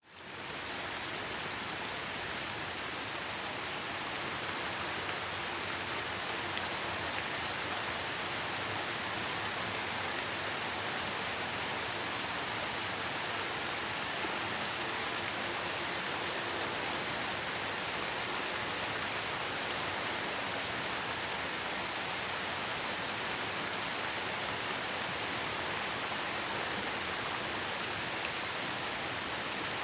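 Steady rain falling, an even hiss that fades in over the first second.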